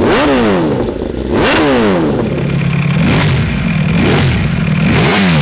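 Two sport-bike engines revved in turn, first an inline-four with an Akrapovic exhaust, then a Ducati Panigale V4. Each throttle blip rises sharply in pitch and falls back to idle: two big revs, a short steady idle, then several quicker blips.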